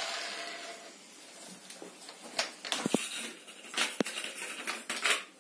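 Angle grinder spinning down after sanding an aluminium alloy wheel, its hum fading out within about a second. Then come scattered light knocks and clicks from handling, one with a short metallic ring about three seconds in.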